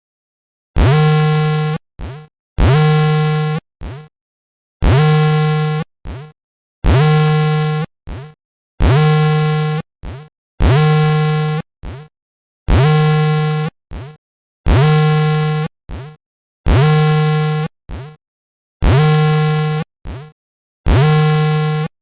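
Earthquake early-warning alarm from monitoring software: a loud, buzzy electronic tone lasting about a second, followed by a short blip, repeating about every two seconds. It starts under a second in after dead silence.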